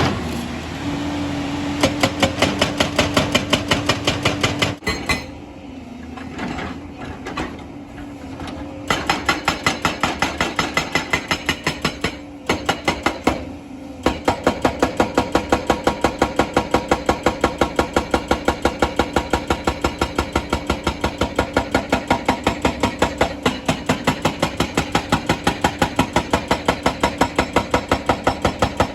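Excavator-mounted hydraulic rock breaker hammering on stone in fast, even blows, several a second, over the excavator's steady engine drone. The hammering pauses twice for a few seconds, about five seconds in and again around twelve seconds, then starts again.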